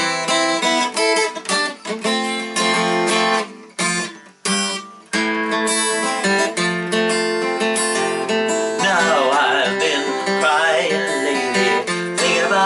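Steel-string acoustic guitar strummed in a steady rhythm with chord changes. About nine seconds in, a wordless singing voice joins over the strumming.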